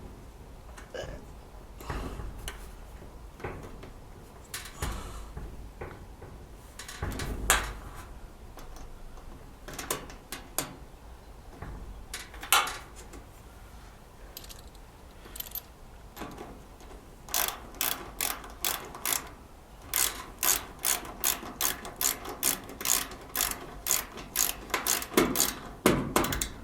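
Hand ratcheting driver clicking as screws on a dryer's terminal block are tightened: scattered clicks and knocks at first, then a steady run of clicks, about three a second, over the last third.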